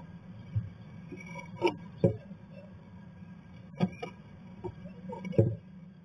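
Tree swallow moving about inside a cedar nest box: scattered sharp knocks and scratches against the wood and the pine-needle nest, over a steady low hum.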